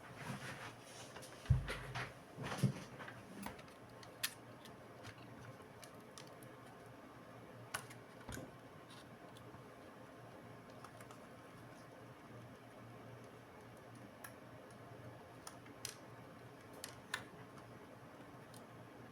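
Sparse small clicks and taps from handling laptop parts and tools, with a dull thump about a second and a half in and a few sharper clicks spread through the rest.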